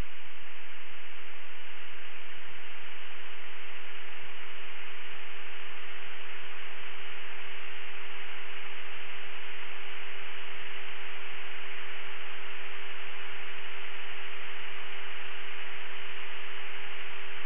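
Steady static hiss with a constant hum tone underneath, unchanging throughout, heard over a jet cockpit's radio and intercom audio.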